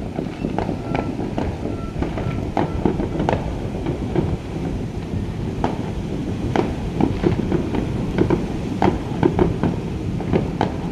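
Fireworks going off: a quick, irregular series of sharp bangs and pops, several a second, over a steady low rumble.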